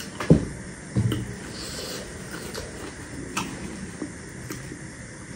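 Close-up chewing of a mouthful of panipuri, with two dull thumps in the first second and a few faint clicks after.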